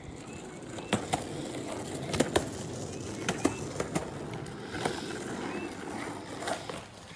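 Skateboard wheels rolling on pavement: a steady rumble broken by a series of sharp clicks and knocks.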